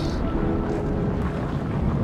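Low, steady rumbling drone with a few faint held tones: an ambient background sound bed.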